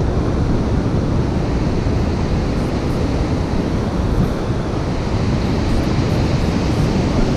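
Surf breaking and washing up the beach, a steady rushing noise, with wind buffeting the microphone.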